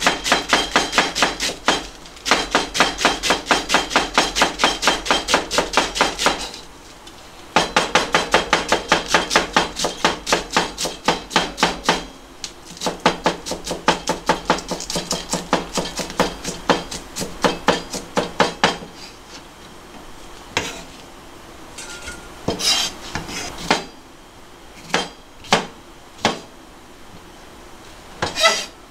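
Kitchen knife shredding cabbage on a plastic cutting board: rapid, even knocks of the blade on the board in three long runs with short pauses between. Near the end the chopping gives way to a few scattered knocks and taps.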